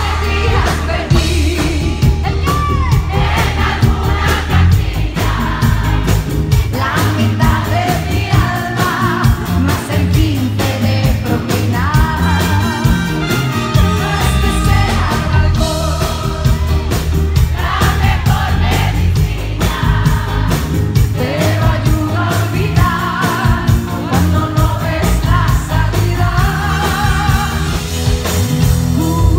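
Live band music with a woman singing lead into a microphone, her held notes wavering with vibrato over the band.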